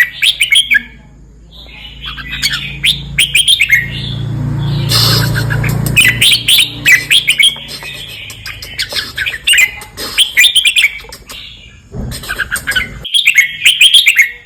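Red-whiskered bulbul singing clusters of quick, chirpy warbled phrases with short pauses between them. Midway, a broad rushing noise swells up under the song for a couple of seconds and then fades.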